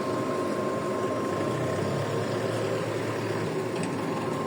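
A vehicle engine idling steadily, with a thin steady whine running over it.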